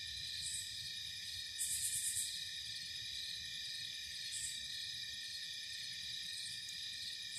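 Steady chorus of night insects, crickets trilling on several steady pitches at once, with a few short, higher buzzes on top, the loudest about two seconds in.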